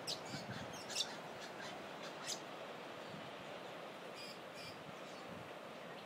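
Wild birds calling in short, sharp high notes: several in the first two and a half seconds, then two more a little after four seconds. Beneath them is a steady hiss of ocean surf.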